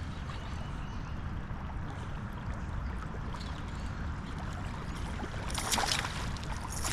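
Creek water running steadily, with a short burst of louder noise about five and a half seconds in.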